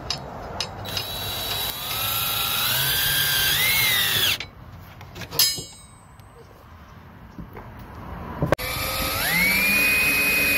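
Cordless drill-driver driving screws through the steel mounting plates of table legs into a wooden tabletop. Its motor whine rises as it speeds up and stops about four seconds in. It starts again near the end, rising to a steady high whine.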